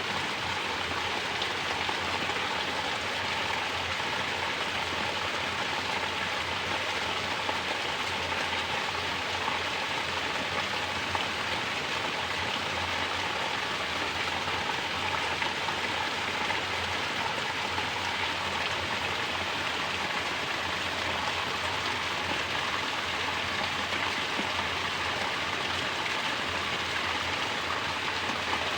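Mountain water pouring from a natural shower and splashing down in a steady, unbroken rush.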